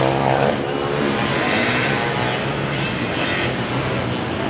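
Motocross dirt bike engines racing around the track, heard from a distance as a steady overlapping buzz. One engine's pitch climbs in the first half-second, then the drone holds even.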